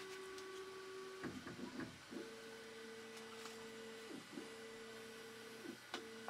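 Stepper motors of a Bambu Lab H2C 3D printer whining at steady pitches while it runs its initial calibration. One tone stops about a second in, followed by a few short chirps. Then a two-note whine runs, dipping in pitch and breaking off briefly twice.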